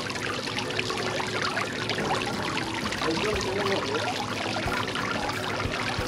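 Small tiered garden fountain: water spilling steadily over its tiers and splashing into the tiled basin below.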